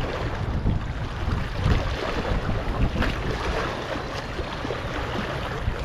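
Wind buffeting the microphone over lapping water, a steady rough rumble with a few faint ticks.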